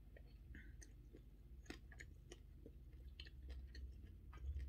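Faint close-miked chewing of fried spaghetti, with short mouth clicks scattered throughout and a low bump near the end.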